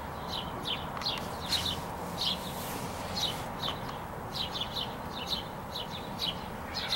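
Birds chirping: a steady string of short, high notes, each falling slightly in pitch, two or three a second.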